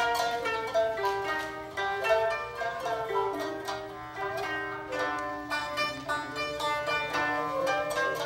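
Japanese sankyoku ensemble of koto, shamisen and bamboo shakuhachi playing: a busy run of plucked koto and shamisen notes under held shakuhachi tones.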